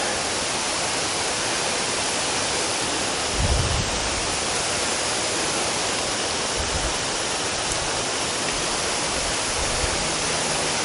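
Steady, even hiss of rushing water, with a brief low bump about three and a half seconds in.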